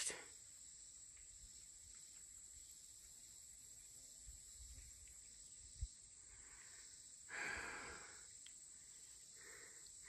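Near silence: faint steady high insect hum of a summer creek bank, with a short soft rustle about seven seconds in.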